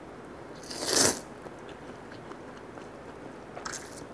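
Konjac noodles in mala-tang broth being slurped close to the microphone: one loud slurp about a second in that builds and then cuts off, and a fainter, shorter one near the end.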